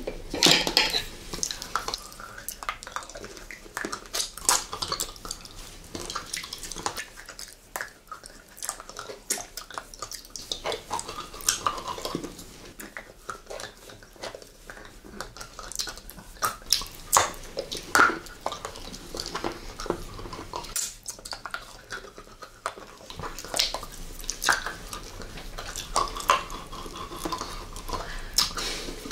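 Close-miked mouth sounds of two people sucking and licking round hard-candy lollipops: wet smacking and slurping with many irregular sharp clicks.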